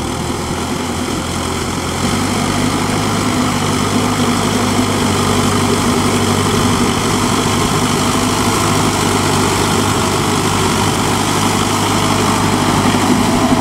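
Four-cylinder turbo diesel engine of a ride-on paddy tiller running steadily under load while tilling flooded mud. It grows louder about two seconds in, then holds an even, droning note.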